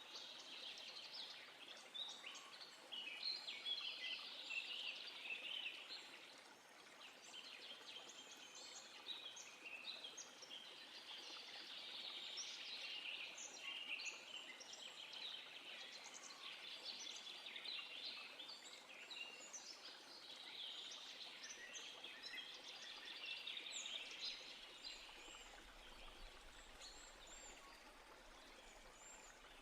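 Faint chorus of small songbirds: many quick chirps and trills overlapping, swelling and fading in waves, over a steady soft hiss.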